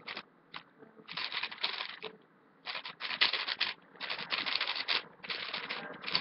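Plastic 3x3 speed cube being turned rapidly by hand: quick clicking and clattering of the layers in bursts of about a second each, separated by short pauses.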